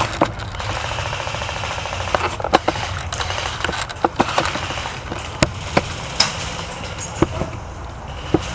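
Airsoft gunfire during a skirmish: a steady rapid rattle of electric airsoft rifles firing, with sharp single cracks of shots scattered through it.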